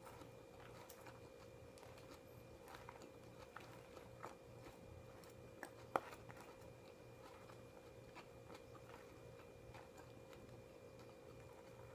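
Near silence: quiet room tone with a steady faint hum and scattered soft clicks, one sharper click about halfway through.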